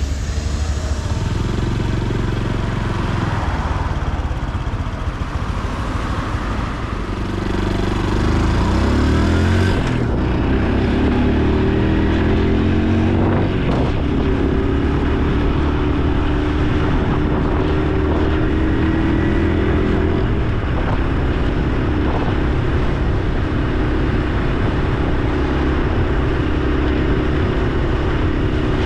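Honda Super Cub C125's single-cylinder engine and exhaust as ridden, heard from the bike. It pulls away and accelerates about eight seconds in, the engine note rising and stepping up through gear changes, then settles into a steady cruise.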